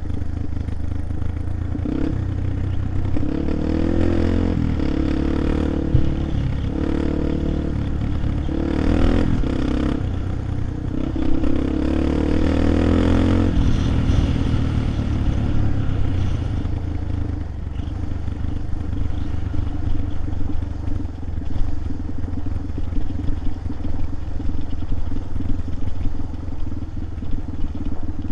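A vehicle engine running under a steady low rumble. Its pitch steps up and down several times between about 2 and 13 seconds in, then it settles.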